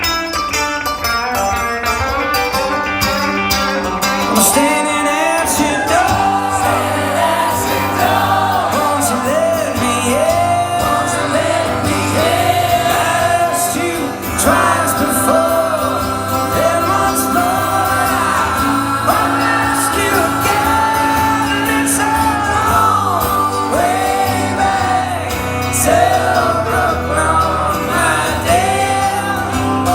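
A live band playing a song, with a lead vocal sung over guitars.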